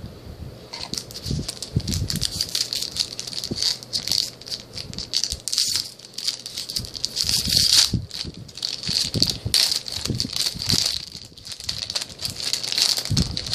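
Foil wrapper of a Duel Masters DM-01 booster pack crinkling as it is handled and opened by hand. A dense, uneven run of crackles starts about a second in and goes on without a break.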